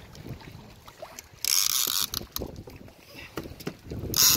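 Conventional fishing reel's drag buzzing as a hooked fish pulls line against it, in two short runs: one of about half a second starting a second and a half in, and a shorter one near the end. Light clicking from the reel comes in between.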